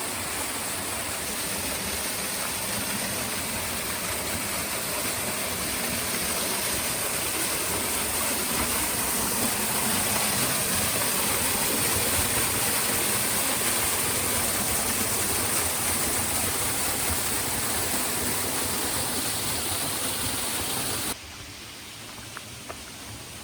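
Waterfall pouring: a steady rushing of water that swells a little midway, then drops suddenly to a quieter level near the end.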